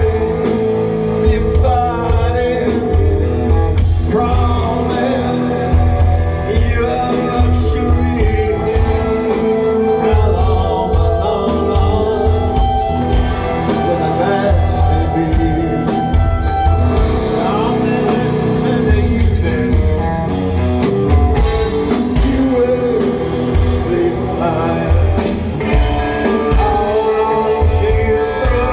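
Live rock band playing a song, with a male voice singing over the band and a heavy, pulsing bass.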